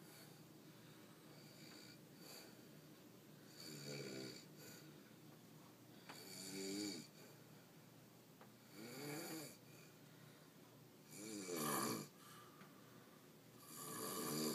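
A man snoring in his sleep: five snores, each about a second long, coming roughly every two and a half seconds, with faint breathing between them.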